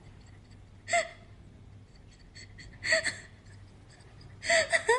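A person's short breathy vocal sounds, one about a second in, one about three seconds in and a quick pair near the end, over a faint low hum.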